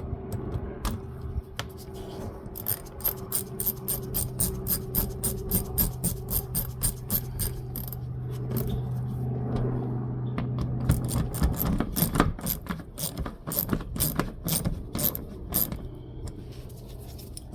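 A 1/4 inch ratchet with an 8mm socket clicking steadily as bolts are run in on the under-engine cover panel. There are two long runs of quick, even clicks with a short pause between them, over a steady low hum.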